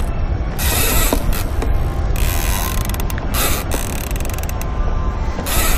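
Large conventional lever-drag trolling reel being cranked against a hooked tuna, its gears and ratchet clicking in uneven spells over a steady low rumble.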